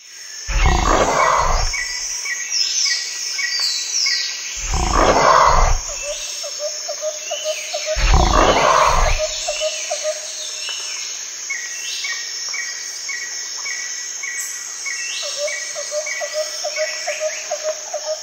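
A big cat roaring three times, about four seconds apart, over bird calls chirping repeatedly in the background.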